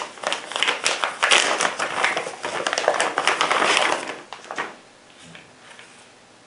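Packaging crinkling and rustling as a plastic paddle holster is pulled out of it: a dense run of crackles that dies away about four and a half seconds in.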